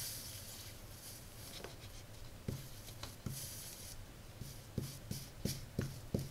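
Hot soldering iron tip being wiped in short strokes across a piece of wet leather to clean it, a scratchy rubbing like writing. The strokes come quicker in the second half, and short bursts of hiss come near the start and about three seconds in.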